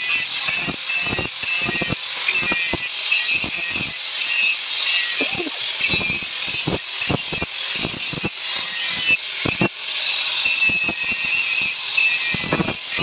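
Power tool running steadily on metal parts of a motorcycle rear shock, a high hiss, with irregular clinks and knocks of metal parts being handled.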